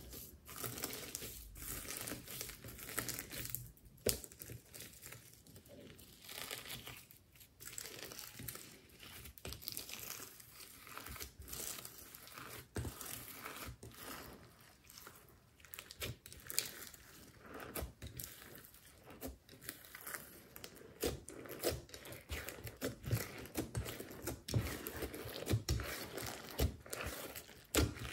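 Hands kneading and folding glossy slime mixed with sequins, glitter and plastic beads, making a continual run of small crackles and clicks.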